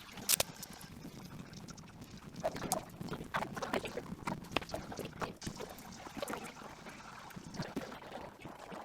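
Hands peeling and pressing on stickers: irregular crinkles, rustles and small taps of sticker backing and plastic being handled.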